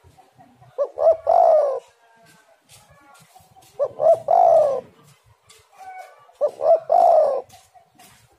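Spotted dove cooing: three calls about three seconds apart, each two short notes followed by a longer falling coo.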